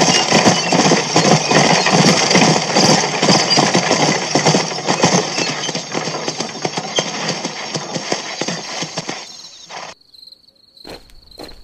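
Sound effect of a galloping horse: a rapid, dense patter of hoofbeats that fades out about nine seconds in. Near the end, a few slow, evenly spaced footsteps begin over a steady chirping of crickets.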